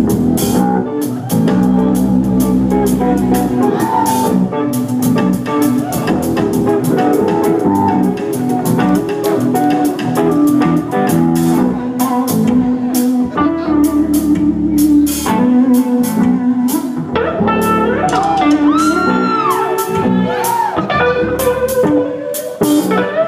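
Live rock power trio playing loud: distorted electric guitar, electric bass and drum kit in a driving instrumental passage, with bending, gliding notes in the final seconds.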